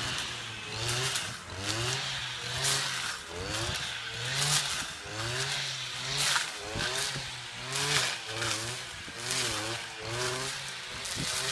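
Stihl brushcutter engines running under load while cutting brush. The revs rise and fall over and over, about once a second, as the heads swing through the growth. Short crackly bursts come from the cutting heads striking the vegetation.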